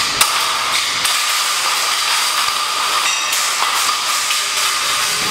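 Steady loud hiss of work noise while metal suspended-ceiling grid runners are pulled down, with a few light metallic clinks and a brief ringing scrape a little after three seconds.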